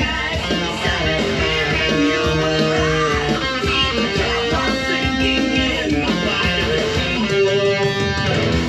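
Jackson electric guitar playing a melodic line of held and moving notes.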